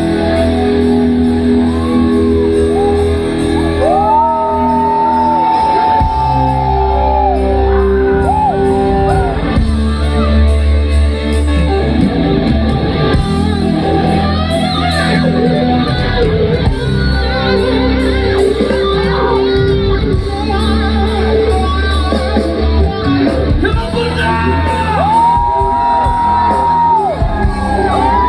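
Live rock band playing through a concert PA: electric lead guitar with long, bent, held notes over bass guitar and drums. The bent guitar lines come twice, about four seconds in and again near the end.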